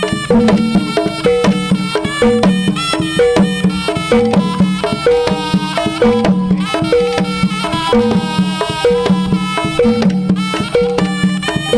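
Javanese jaranan music: a gamelan-style ensemble of kendang drums and gongs with tuned metal percussion playing a steady, repeating rhythm.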